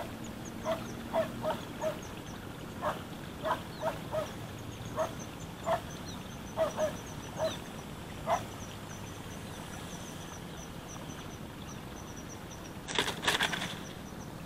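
An animal calling in short repeated calls, often two or three close together, which stop about eight seconds in, over a thin repeated high chirping. About a second before the end there is a brief loud rustle.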